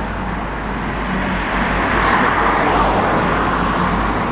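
Road traffic: a vehicle's tyre and engine noise swelling to a peak a couple of seconds in and easing off again, as it passes, over a steady low rumble.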